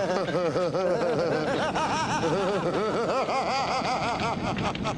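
A person laughing: a rapid, unbroken run of rising-and-falling notes, several a second.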